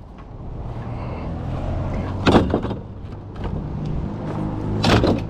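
Truck engine and road noise, a steady low hum that swells over the first second as the truck gets under way. Two brief sharp sounds cut in, one about two seconds in and one near the end.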